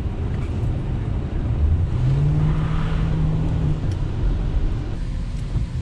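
Ford Crown Victoria Police Interceptor's V8 and road noise heard from inside the cabin while driving; about two seconds in the engine note rises and holds for a couple of seconds as the car accelerates.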